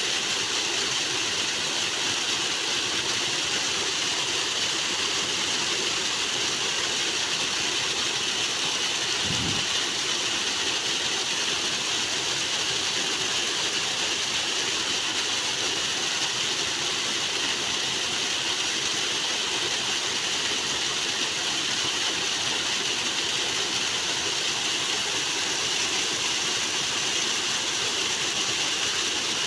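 Rushing water, a loud steady hiss that never lets up, with one brief low thump about nine seconds in.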